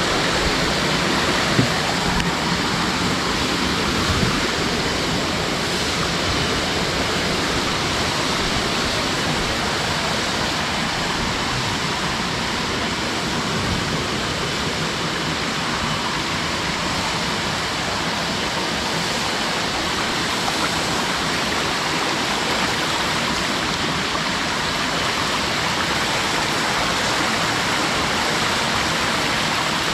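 Steady rush of water from a jungle waterfall and its rocky stream, with two small knocks in the first few seconds.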